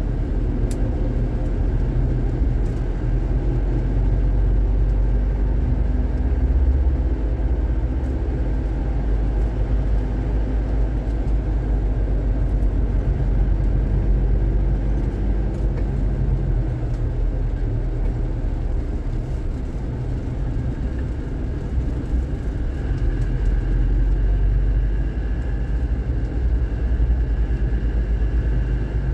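Isuzu Panther's engine running steadily with low road rumble, heard inside the car's cabin while it moves slowly in heavy traffic.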